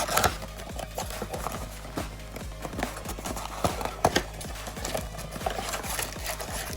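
Background music with a steady beat, over irregular clicks, knocks and rustles of trading-card packs and cards being handled and opened.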